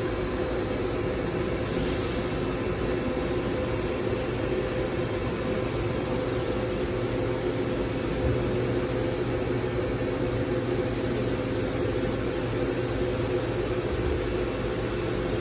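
CNC machining centre running steadily, its axis drives humming with several steady tones as the spindle head moves in a circle around a Renishaw ballbar, checking the accuracy of the machine's movement.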